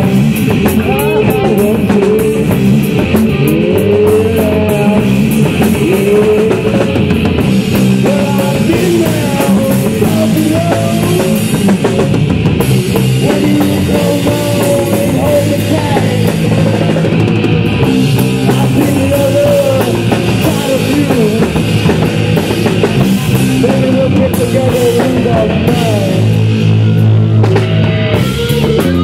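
Three-piece rock band playing live: distorted electric guitar, bass guitar and drum kit in a loud, steady instrumental passage, with bending melodic notes over the rhythm.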